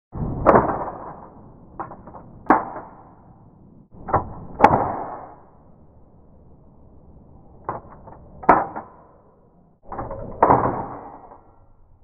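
Apex Standard index typewriter printing: the type dial is set and the lever pressed down, giving five sharp metallic clacks a couple of seconds apart, each just after a lighter click.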